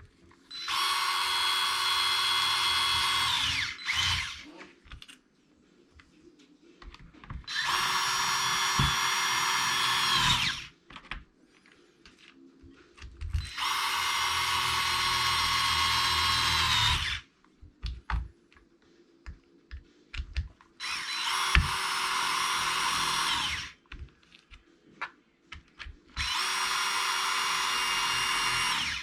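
Power drill driving in the screws of an RC truck's differential cover: five runs of steady whine, each about three seconds long, the pitch sagging slightly just before each stops, with a short extra blip after the first. Small handling clicks fall in the pauses between runs.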